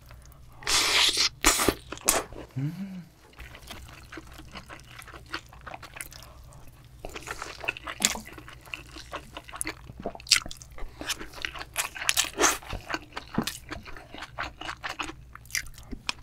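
Close-miked eating sounds: a spoonful of spicy yellowtail fish stew taken into the mouth with a loud burst of mouth noise about a second in, then wet chewing with many small clicks and smacks.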